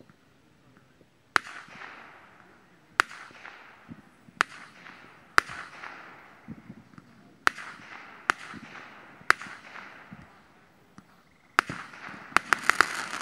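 Fireworks going off: single sharp bangs every second or two, each followed by a fading crackle, then a quick string of bangs near the end.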